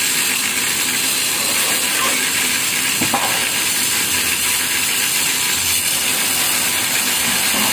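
Gas cutting torch hissing steadily as it cuts through the steel inner baffles of a motorcycle exhaust muffler, with a single click about three seconds in.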